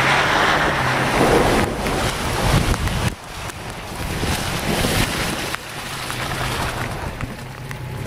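Vehicle engine running as tyres splash through muddy water, with wind buffeting the microphone. The loud splashing falls off suddenly about three seconds in.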